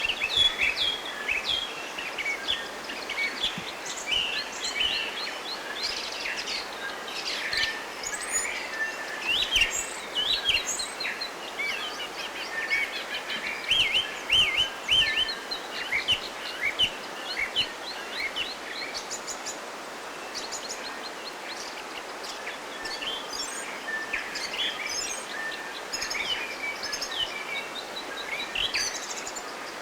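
Several songbirds chirping and singing, quick whistled notes overlapping throughout, over a steady background hiss.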